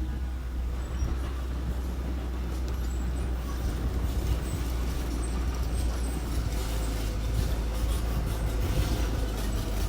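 Small earthmoving machine's engine running steadily under a low drone, with irregular metallic clanking and rattling that grows busier about two-thirds of the way in.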